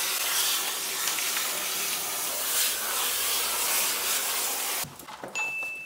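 Water spraying from a hand-held hose nozzle onto a dog's wet coat during a bath, a steady hiss that cuts off suddenly near the end.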